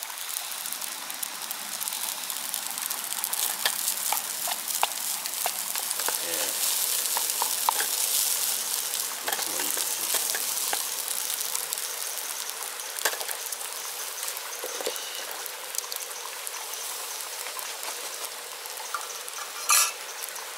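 Fried rice sizzling in a frying pan as it is stirred with a wooden spatula, with salmon fillets frying on a grill net beside it. The steady sizzle is broken by scattered scrapes and clicks of the spatula and chopsticks, and by a short sharp knock near the end.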